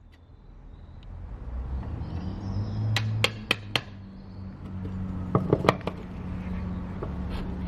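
Sharp metal clinks of hand tools and engine parts being handled during an engine teardown: four quick clinks about three seconds in and a few more a little after five seconds, over a steady low hum.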